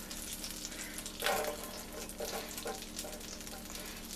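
Butter and sliced potatoes sizzling in a hot cast iron skillet, a steady crackle of frying. There are a few short louder knocks, the biggest about a second in.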